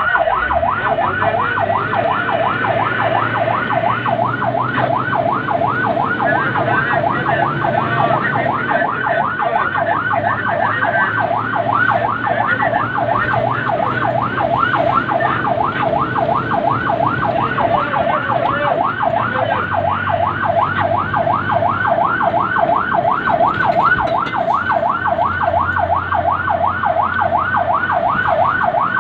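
Fire truck's electronic siren in a fast yelp: rapid rising sweeps, several a second, unbroken, with the truck's engine running low underneath.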